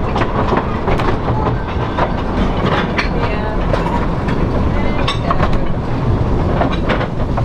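Narrow-gauge passenger train running along the line, heard from aboard the coach: a steady rumble from the running gear with irregular sharp clicks and clacks from the wheels on the track.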